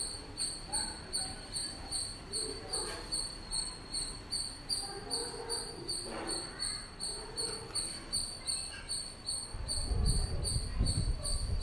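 Cricket chirping steadily, about three high-pitched chirps a second. A low rumble comes in near the end.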